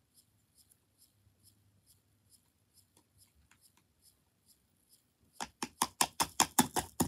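Green slime being squeezed and worked into its plastic jar, giving a quick run of about nine sharp clicks over a second and a half near the end. Faint high ticking repeats about twice a second underneath.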